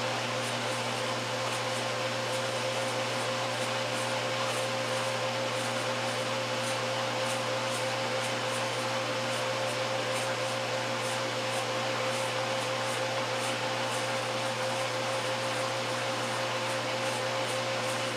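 1968 Kenmore top-loading washer running with a steady motor hum and whir, and a faint regular ticking over it.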